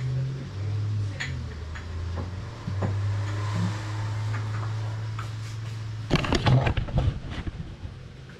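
A low hum that shifts between a few pitches, then about a second and a half of clattering, like kitchenware being handled, starting about six seconds in.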